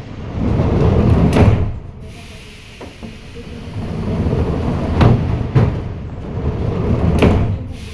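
Metro train running at speed, heard from inside the carriage: a loud rumble of wheels on rails that swells and eases, with several sharp metallic knocks.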